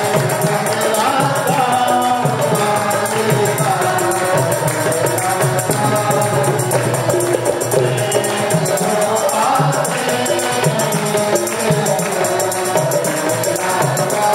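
Prabhu harmonium playing a melody over a hand drum, with hand clapping keeping a steady beat.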